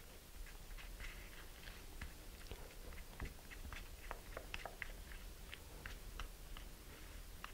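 Wooden stir stick mixing two-part paste epoxy (RocketPoxy) in a small paper cup: faint, irregular sticky clicks and scrapes as the paste is worked.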